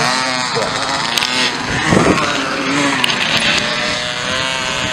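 Small motocross bike engines revving, pitch rising and falling again and again as riders work the throttle, loudest about two seconds in.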